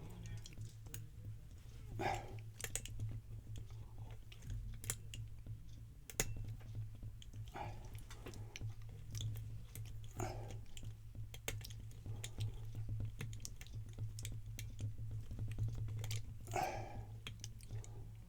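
Scattered small metal clicks and scrapes of a lock pick raking and setting the pins of a Guard Security padlock held under a tension wrench, over a steady low hum.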